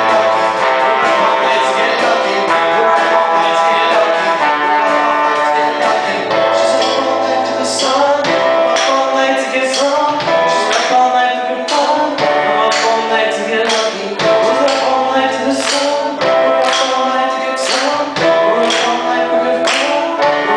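Band music with singing over sustained instrumental chords; a regular drum beat comes in about seven seconds in.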